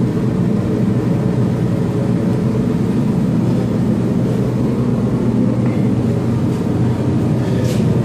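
ProTemp Sun-Stream PT-70-SS 70,000 BTU radiant kerosene heater running lit: a steady hum of its blower fan and burner, with a few low tones held level throughout.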